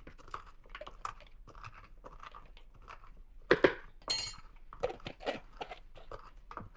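Whole allspice (pimento) berries being crushed by hand into a coarse grind: irregular small crunches and cracks, with one brief high ring about four seconds in.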